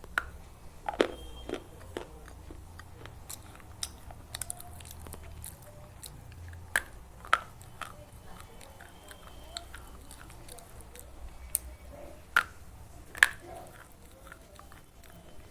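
Slate pencils being bitten and chewed close to the microphone: sharp, separate crunches every few seconds, with smaller crackles of chewing between them. The loudest bites come about a second in and again near the end.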